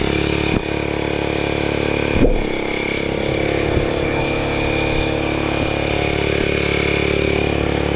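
Air compressor running steadily with a motor hum and a high whine. A brief low thump about two seconds in.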